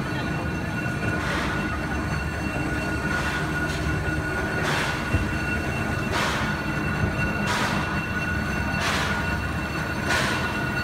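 Small steam switcher locomotive and passenger car turning on a turntable: a steady high squeal runs underneath, and puffs of steam hiss come about once every one and a half seconds.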